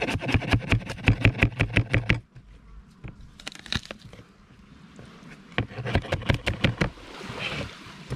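Steel cleaver chopping on a plastic cutting board, in quick runs of sharp knocks about seven a second: a long run at the start, a few strikes midway and another run later on.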